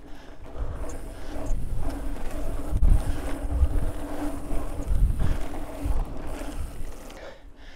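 Wind buffeting the microphone during a mountain-bike ride: an irregular low rumble that rises and falls in gusts, with a faint steady hum through the middle.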